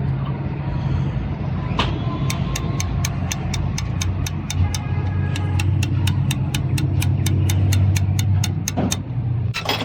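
A machine running with a steady low hum, joined about two seconds in by a fast, even run of sharp clicks, about five a second, that stops just before the end.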